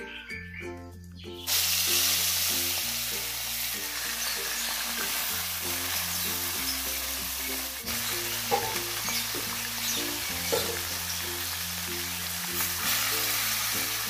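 Whole short mackerel frying in hot oil in a wok: a steady loud sizzle that starts suddenly about a second and a half in, with a couple of sharp clicks of metal tongs turning the fish.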